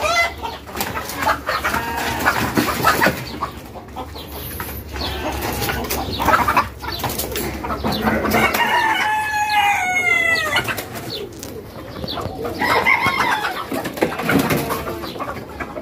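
A flock of mixed-breed native chickens clucking and calling, with a rooster crowing once, a long call with a falling end about halfway through, and another shorter call a few seconds later.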